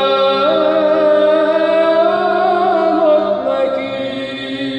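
Byzantine chant in Arabic: a solo male cantor draws out one syllable in a long melismatic line over a steady held drone (ison), which steps down to a lower pitch about three and a half seconds in.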